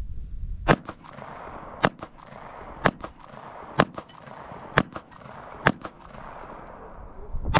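1911 pistol firing .45 ACP 230-grain full metal jacket rounds: seven shots, about one a second with a longer pause before the last, each trailing off in an echo.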